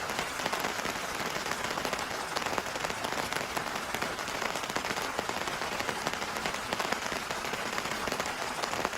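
Heavy rain falling steadily, a dense even hiss with a crackle of countless individual drops striking surfaces.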